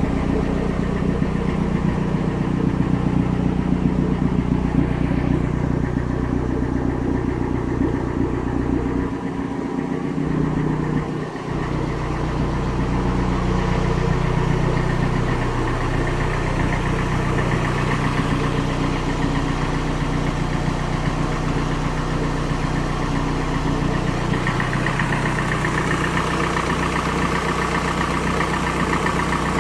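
Turbocharged Toyota 3S-GE four-cylinder engine in an Altezza idling steadily, the engine the owner reports as making strange noises. The low rumble dips briefly about ten seconds in, and the tone changes a little near the end.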